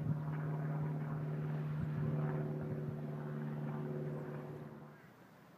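An engine running steadily at one even pitch, a constant drone that fades out about five seconds in.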